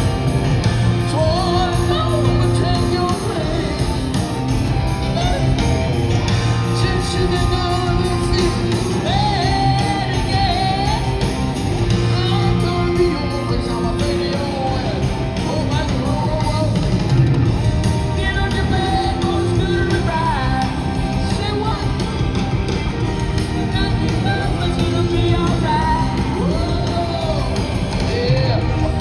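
Live rock band playing with a male lead vocal sung over electric guitar, bass and drums, heard with the echo of a large hall.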